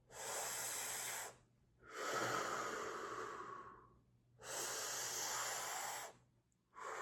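A man breathing audibly and deeply, four long breaths in a row, each a second or two long with short pauses between them.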